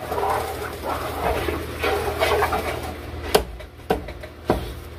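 Wooden spoon stirring a bubbling cream sauce in a stainless steel frying pan. Irregular wavering sounds come for the first three seconds, then the spoon knocks sharply against the pan three times.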